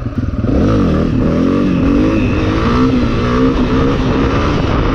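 Honda CRF250F dirt bike's single-cylinder four-stroke engine revving under the rider's throttle during a wheelie attempt. The engine note dips at first, climbs about half a second in, then wavers up and down as the throttle is worked.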